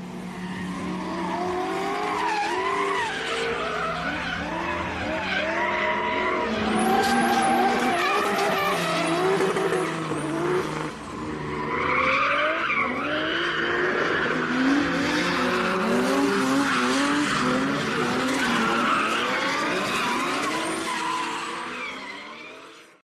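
Drift cars' engines revving up and down hard as they slide, with tyres squealing and skidding. There is a short lull about halfway through, then the revving and skidding pick up again.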